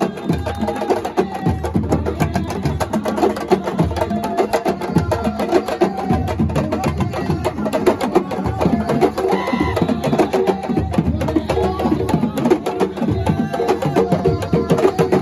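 Live Senegalese drum ensemble of djembes and other hand drums playing a fast, dense, unbroken rhythm.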